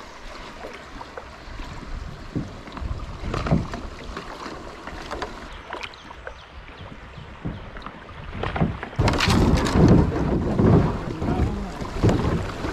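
Paddling a kayak: scattered knocks of the paddle and gear with water lapping at the hull. About nine seconds in, a sudden, much louder rush of fast water sets in as the kayak runs into a riffle, with wind buffeting the microphone.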